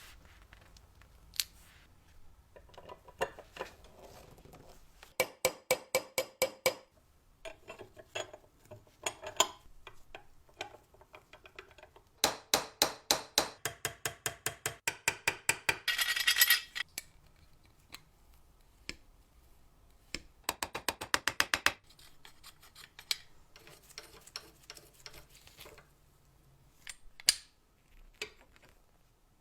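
Hand work on the metal parts of an old apple peeler: three runs of quick, evenly spaced ratcheting clicks, each lasting one to five seconds, with scattered single clinks of metal between them.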